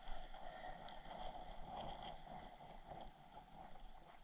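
Faint steady rush of river water, with a few light ticks.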